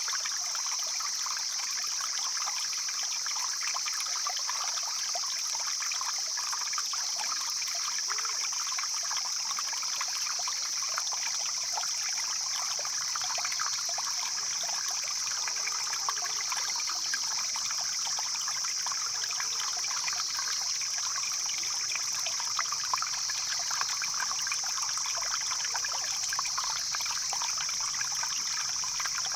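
A stream flowing steadily over rocks, trickling and splashing without pause, with a steady high hiss above the water sound.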